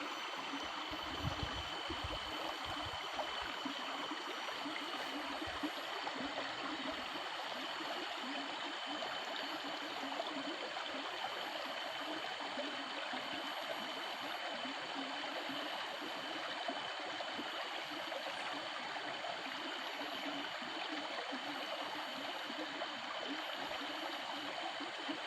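Steady rush of flowing water, as from a stream or irrigation channel beside a rice paddy, with a faint steady high-pitched tone over it.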